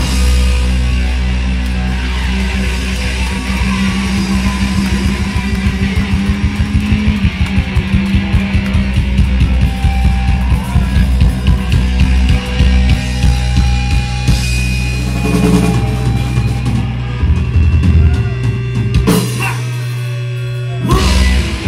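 Punk rock band playing live: drum kit and guitars over held bass notes, the instrumental end of a song. A final held chord rings out for a couple of seconds near the end, then stops abruptly.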